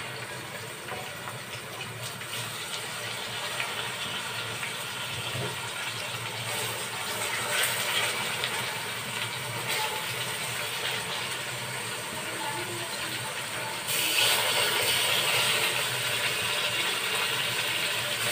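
Marinated chicken pieces sizzling as they are laid into hot oil with fried onions in a cooking pot, with a few light knocks as pieces go in. The sizzle turns louder and brighter about fourteen seconds in.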